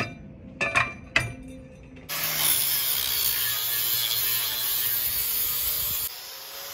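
A few metal clinks, then an angle grinder grinding the trailer frame's steel down to bare metal to prep it for welding: a loud, steady grinding for about four seconds that drops off sharply near the end.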